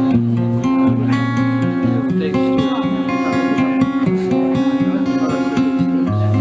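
Acoustic guitar played live in an instrumental passage of a pop song, strummed chords over held low bass notes.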